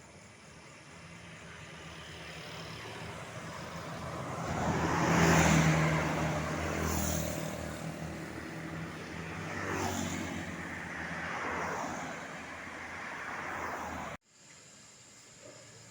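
Two road vehicles pass close by in turn, with engine and tyre noise. The first is loudest about five seconds in, the second about ten seconds in. The sound cuts off abruptly near the end.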